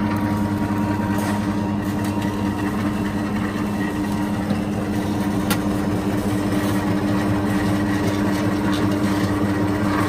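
Steelmaster SM-L20N lockseamer running, its 240-volt single-phase motor turning the six roll stations with a steady hum while a strip of 0.55 mm sheet steel is rolled into a Pittsburgh lock profile. A single light click about halfway through.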